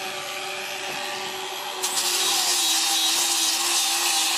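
A power tool running, then cutting into log timber about two seconds in, which adds a loud, even hiss over its steady motor tone.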